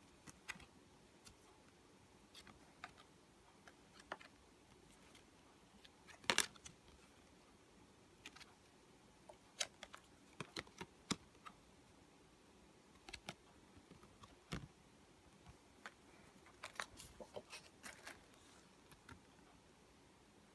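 Irregular light clicks and taps of a product and its packaging being handled during unboxing, the loudest knock about six seconds in.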